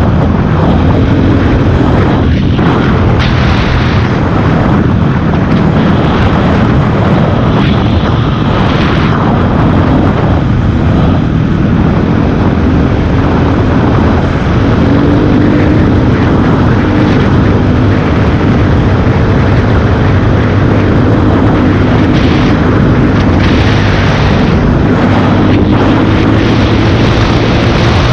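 Honda CRF230F's single-cylinder four-stroke engine running while riding, its pitch slowly rising and falling with the throttle and rising again near the end, under heavy wind rumble on the microphone.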